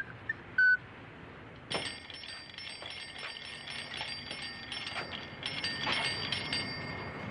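Clockwork of a wind-up toy turtle running, a rapid whirring ratchet-like clicking with a thin high ringing over it, starting about two seconds in. A short whistled note sounds before it.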